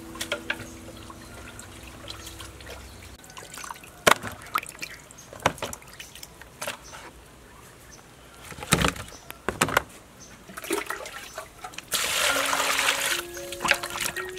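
Water splashing and sloshing in a plastic basin as whole fish are washed by hand, with scattered sharp knocks and a longer stretch of splashing about twelve seconds in. Background music fades out over the first few seconds.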